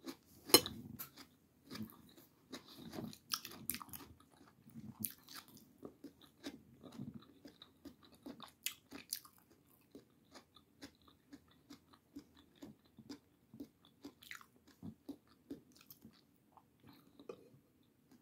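A person chewing and biting a mouthful of tomato close to the microphone: irregular wet clicks and smacks of the mouth, the loudest about half a second in.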